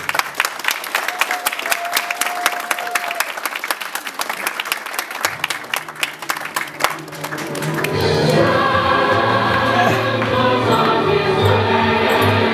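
Audience clapping for several seconds, then recorded music with a choir singing comes in, quietly at first and filling the room from about eight seconds in.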